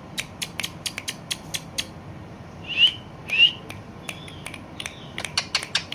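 A parrot gives two short rising whistles about three seconds in, with runs of sharp clicks before and after them.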